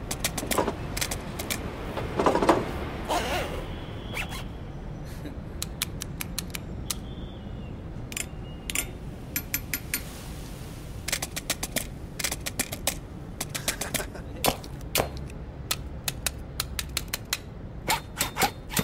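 A rapid, irregular series of sharp clicks and snaps, some in quick clusters, with a louder burst of noise about two and a half seconds in.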